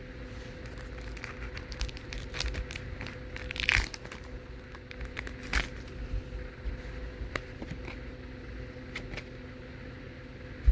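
Foil Pokémon card booster pack wrapper crinkling and tearing as it is opened by hand: a run of small crackles, with louder crinkles about three and a half and five and a half seconds in, over a faint steady hum.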